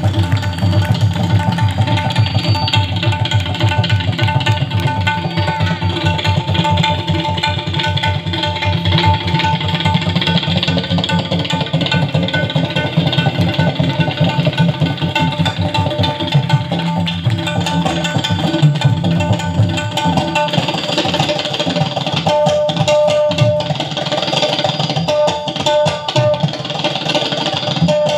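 Fast tabla solo: rapid, dense strokes on the bass and treble drums, over a harmonium holding a repeating melody line.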